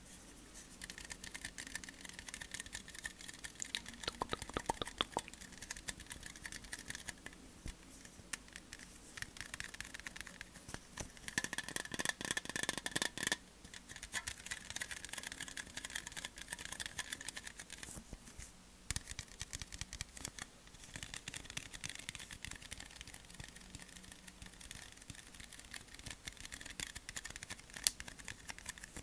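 Long fingernails tapping and scratching on an aluminium Monster Energy drink can held right against a foam-covered microphone: a running stream of close clicks and scrapes. It is densest from about eleven to thirteen seconds in, with one sharp tap near the end.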